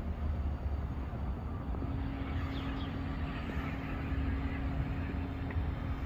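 Diesel truck engine idling: a steady low rumble with a constant hum that firms up about two seconds in.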